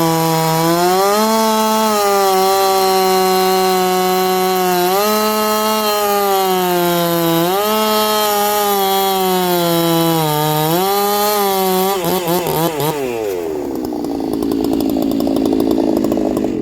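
Chinese-made two-stroke chainsaw cutting through a very hard ironbark log at full throttle. The engine pitch sags and recovers several times as the hard timber loads the chain. About twelve seconds in the throttle is released and the engine falls away to a rough idle.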